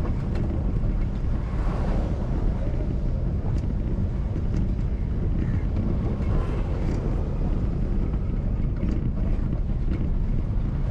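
Steady low rumble of a moving car mixed with wind buffeting the microphone.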